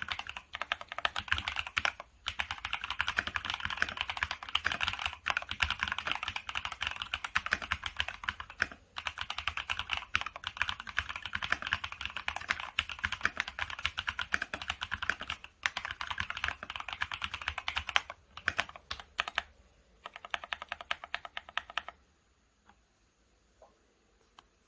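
Fast, continuous typing on a FEKER IK75 gasket-mount mechanical keyboard with Akko CS Silver linear switches and double-shot PBT OSA-profile keycaps. About eighteen seconds in the typing thins to scattered keystrokes, then stops a few seconds later, leaving only a single key press.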